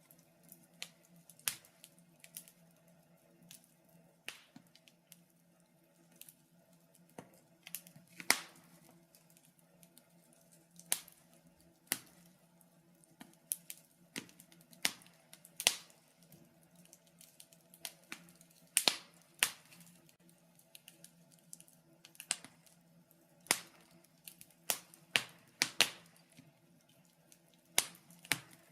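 Wood fire crackling in a fireplace: irregular sharp pops and snaps, some loud and many faint, over a faint steady low hum.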